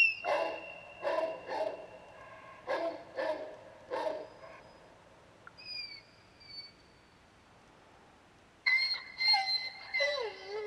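A dog barking, about six short barks in the first four seconds, with wavering howl-like calls that slide down and back up in pitch near the end. High steady whistled tones sound over the barks at the start and again near the end.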